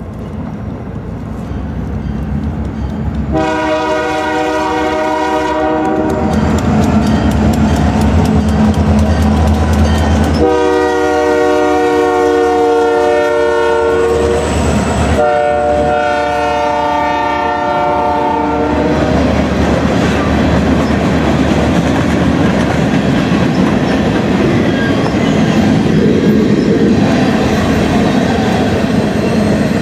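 Canadian Pacific freight train passing close by, led by diesel locomotives whose horn sounds three long blasts, a chord of several tones, over the low throb of the engines. After the horn the covered hopper cars roll past with steady wheel rumble and clickety-clack on the rail joints.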